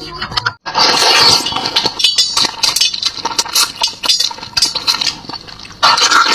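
Close-miked mukbang eating of braised turtle in chili sauce: wet chewing, lip smacks and sucking at the meat, with a dense run of small clicks and clinks. There is a brief cut to silence just over half a second in.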